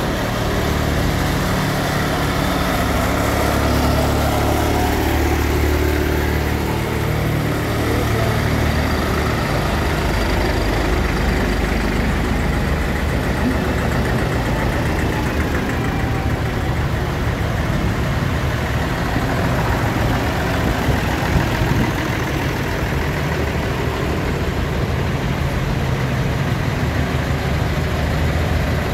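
Engines of several vintage farm tractors running slowly as they drive past one after another. There is a steady low engine note with no pauses.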